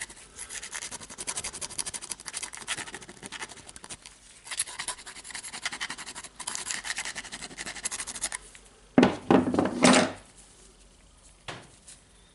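Rapid scraping and rubbing on the plastic carbon brush holder of an angle grinder as it is cleaned of dust and grime, in quick repeated strokes. About nine seconds in comes a louder burst of scraping.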